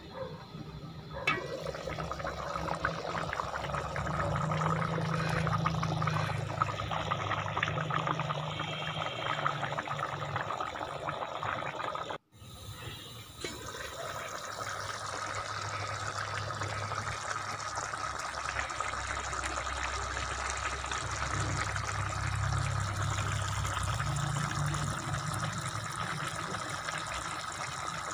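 Rice cooking at a rolling boil in spiced fish stock in a steel pot: a steady bubbling, broken by a short cut about twelve seconds in.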